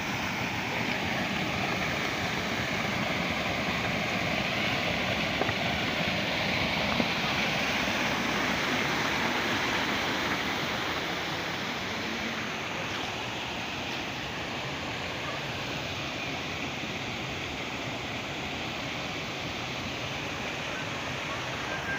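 Fast-flowing river water rushing, a steady, even sound.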